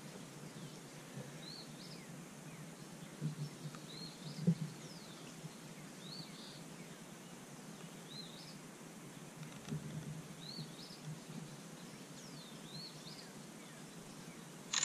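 A bird chirping faintly: short high two-part notes repeated every second or two over a steady hiss, with a few soft knocks.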